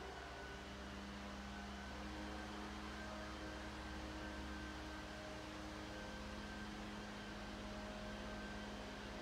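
Steady low hum with a few faint steady tones above it, unchanging throughout.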